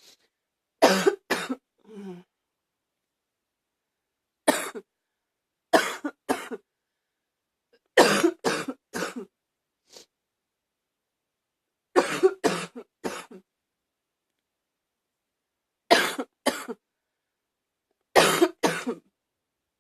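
A person's barky cough, coming in short fits of two to four coughs a few seconds apart.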